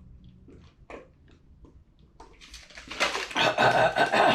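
A person drinking water: a few soft clicks, then a loud noisy stretch of drinking over the last second and a half.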